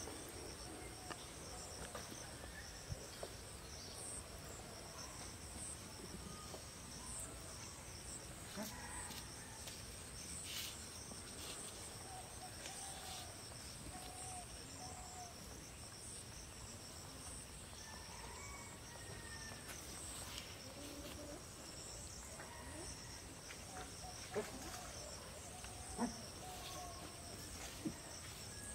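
Outdoor insect chorus, a steady high drone from crickets or similar insects, with faint scattered chirps beneath it. Three sharp clicks sound in the last few seconds.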